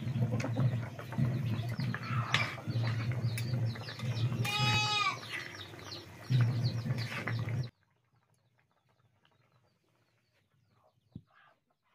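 A goat bleats once, briefly, about halfway through, over a low rumble and scattered clicks. All of it cuts off abruptly about two-thirds of the way in, leaving near silence broken by one sharp click.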